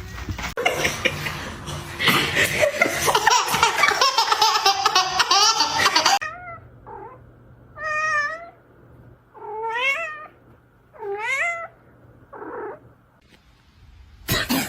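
A cat meowing: about five separate drawn-out meows in the second half, each bending up and down in pitch. These follow a louder stretch of several seconds of dense, overlapping cries and noise.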